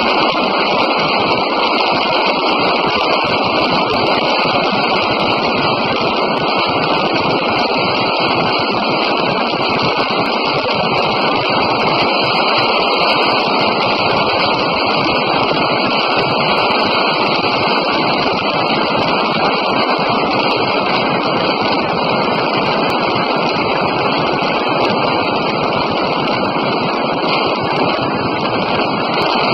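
Steady loud wind roar and buffeting on a phone microphone aboard a Honda Falcon motorcycle held at full throttle near its top speed, about 140 to 160 km/h, with the engine running at high revs beneath the wind.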